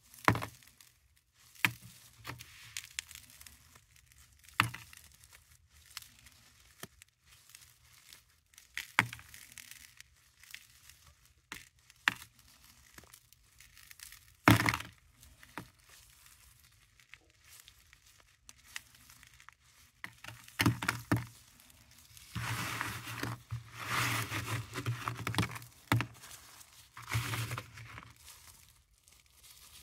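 Paradichlorobenzene mothball tablets being squeezed and crushed in a gloved hand: scattered sharp cracks and clicks as the tablets knock together and snap, the loudest about halfway through. About two-thirds of the way in comes a few seconds of continuous crunching and grinding as they crumble to powder.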